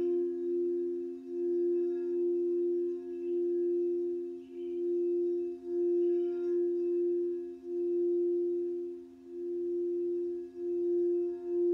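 Crystal singing bowl being played around its rim, one sustained tone swelling and dipping every second or so. A second, lower bowl tone rings on steadily beneath it.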